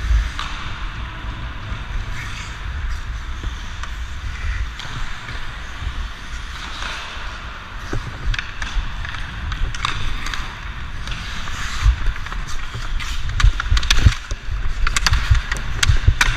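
Ice hockey skate blades carving and scraping the ice, with the low rumble of motion and air on a player-worn camera. Several sharp hockey stick clacks come in the last few seconds.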